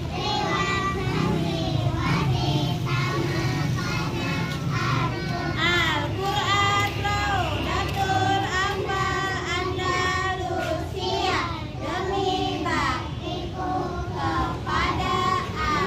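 Children singing along to music, several young voices together.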